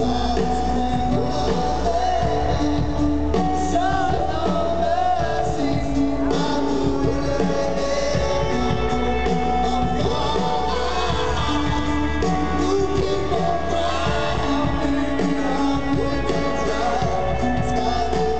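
Live rock band playing loudly with a singing voice, heard from the audience in a large hall.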